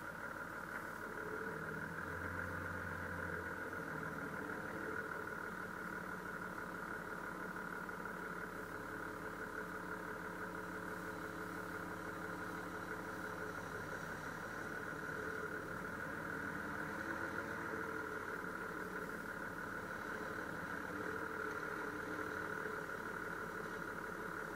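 Toyota Land Cruiser engine running at low revs while the four-wheel drive crawls along a sandy off-road track, the engine note rising and falling slightly.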